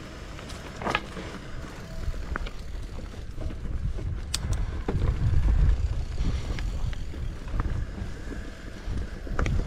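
Mountain bike riding on a dirt trail: wind buffets the microphone with a low rumble that is loudest about halfway through, over scattered clicks and rattles from the bike.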